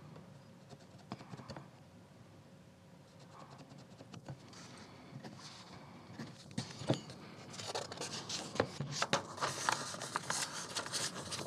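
Faint scratches and taps of a mechanical pencil marking a book page's edge through the slots of a metal ruler and ticking off a printed pattern sheet. Near the end the paper handling gets louder and busier as the page is lifted, folded back and turned, with crackly rustling and clicks.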